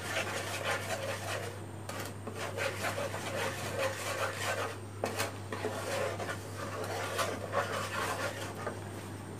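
Wooden spatula scraping and stirring across the bottom of a dark-coated pan of hot milk and sugar, in repeated rasping strokes, over a steady low hum.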